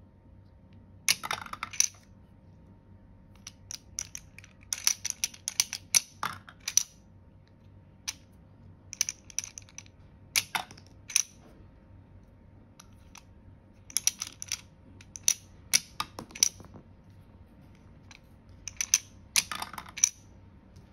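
Sharp plastic clicks and clatters in short clusters every few seconds: a toy catapult launcher being set and flicked, and small toy poop pieces knocking against a plastic toy toilet.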